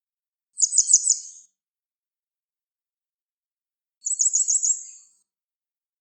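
Gray wagtail song: two short, high phrases of quick repeated notes, one about half a second in and another about four seconds in.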